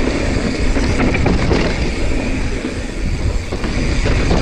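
Mountain bike riding over dirt: wind rumbling on the action camera's microphone and tyres rolling on the trail, with a few short knocks and rattles from the bike over bumps.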